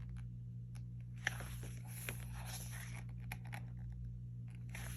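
Pages of an album photobook being turned and handled: soft paper rustling with a few light clicks, over a low steady hum.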